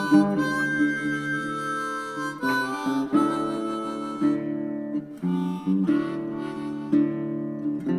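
Background music: a harmonica playing long held notes over guitar.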